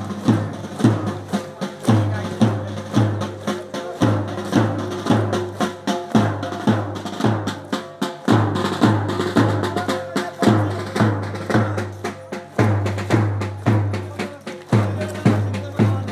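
Music with a steady drum beat, about two beats a second, under a few held tones.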